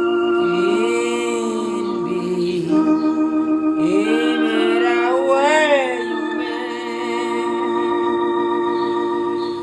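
Hymn music: a held organ-like keyboard chord with a voice singing wordless, sliding phrases over it.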